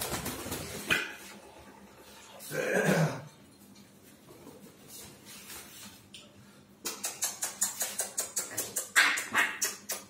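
Congo African grey parrot flapping its wings on a perch: a quick run of sharp feather flutters, about five a second, starting about seven seconds in. A short voice-like sound comes about three seconds in.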